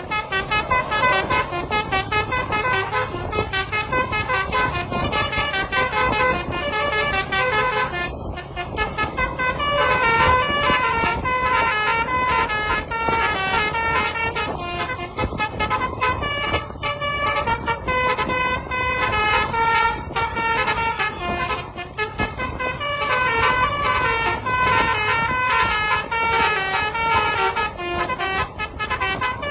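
Basuri telolet multi-tone horn on a tour bus, playing a quick tune of tooting notes one after another, with a brief break about eight seconds in.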